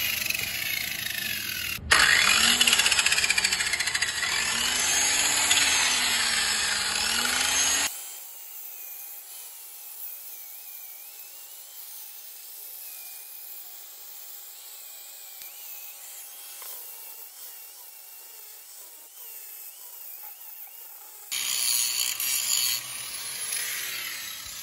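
Corded angle grinder running and grinding at a rib on a Honda B20B aluminium engine block, notching it to clear a turbo. It is loud with a high whine for about the first eight seconds, much quieter through the middle, and loud again briefly near the end.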